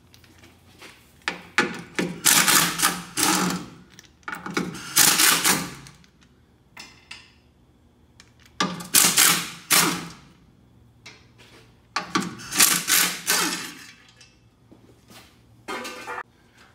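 A cordless power tool running in four bursts of a second or two each, spinning out the four 15 mm bolts that hold a transfer case skid plate, with small clicks and knocks of handling between the bursts.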